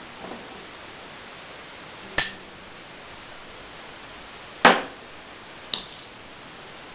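A steel spoon clinking against a glass bowl: three sharp, ringing taps spread over several seconds, over a steady low hiss.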